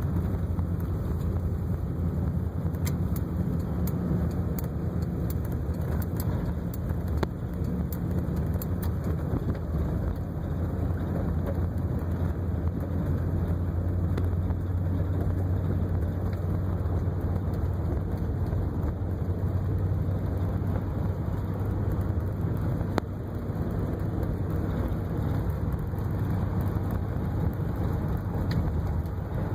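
1958 Cadillac's V8 running steadily with a low hum and a few faint ticks.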